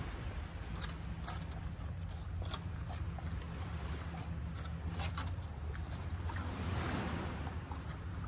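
Steady wind rumble on the microphone, with scattered clicks and scrapes of a plastic fork in a foam takeout box as noodles are scooped and eaten.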